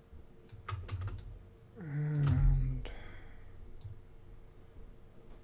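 A few quick clicks of a computer mouse or keys at the desk, and about two seconds in a short wordless hum from the person at the computer, falling in pitch and then held for a moment; one more click follows.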